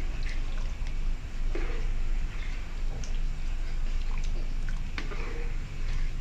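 Spatula stirring thick sambar in a nonstick pan: soft wet sloshing with a few light taps and scrapes of the spatula against the pan, over a low steady hum.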